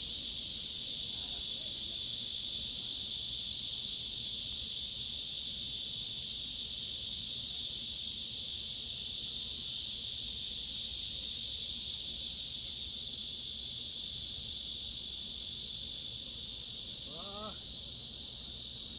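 Cicadas buzzing in a steady, dense, high-pitched drone that sits well above the low end, without pauses or pulses.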